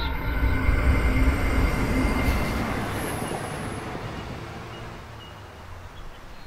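Electric commuter train running past on the tracks: a low rumble with a faint thin high tone at first, fading steadily as the train moves away.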